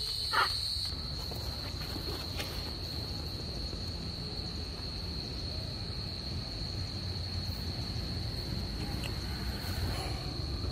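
Evening insect chorus: a steady, unbroken high-pitched trill over a low rumble. There is a brief louder sound about half a second in.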